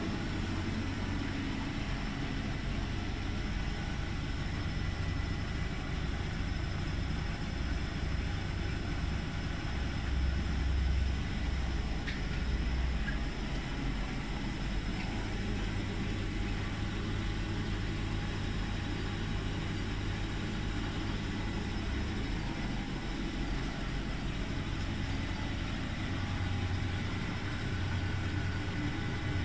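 1968 Scharpf Elektronica 2920 washing machine running with a steady low motor hum. The hum swells and eases in stretches of several seconds.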